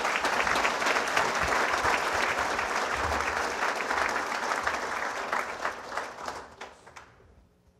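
Audience applauding, a dense steady clapping that fades out about a second before the end.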